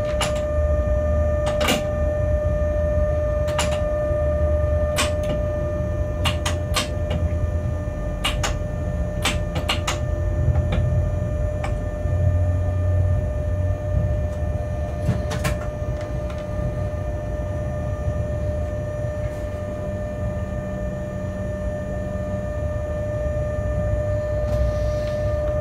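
Freight locomotive cab noise while running: a steady low rumble with a constant whine, and about a dozen sharp clicks scattered through the first sixteen seconds.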